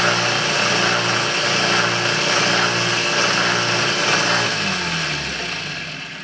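Small bench belt sander running steadily with its motor hum and belt hiss. It is switched off about four and a half seconds in, and the motor winds down, falling in pitch and fading.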